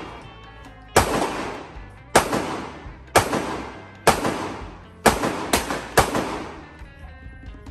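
Handgun shots at an indoor range, seven in all, most about a second apart with two close together about five seconds in, each echoing off the range walls.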